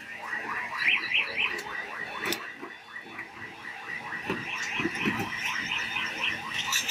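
Busy street-stall ambience: quick runs of short, high chirps or squeaks near the start and again near the end, a few sharp clicks, and low murmuring around the middle.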